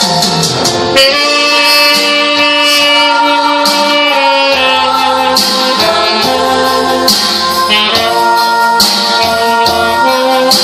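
Music: sustained melody notes over a steady, jingling percussion rhythm.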